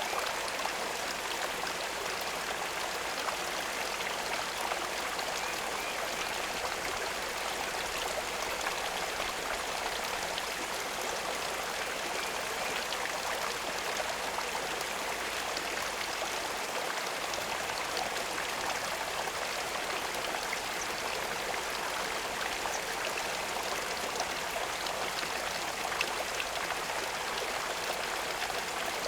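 Water running steadily, a continuous stream-like splashing and trickling with fine droplet ticks and no change in level.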